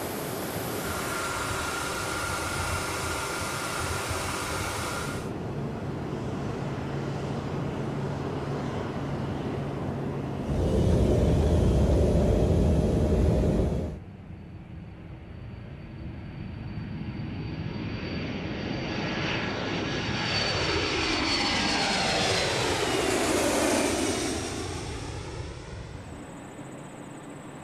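KC-135 Stratotanker jet engines heard over several cut shots. First a steady engine whine while on the ground, then a few seconds of loud low rumble from a takeoff run near the middle. Then a jet passes overhead: a high whine that drops in pitch as it goes by, the noise swelling, sweeping and then fading.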